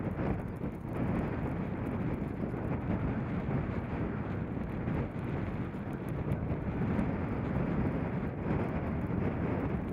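Wind blowing hard across the camera microphone, a steady rumbling noise that holds at one level without any distinct events.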